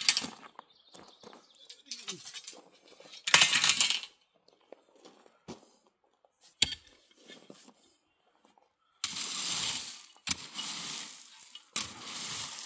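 Hand tools digging into rocky ballast and dirt: a loud scrape of stones about three seconds in, a few faint clinks, then three gritty scrapes of about a second each near the end.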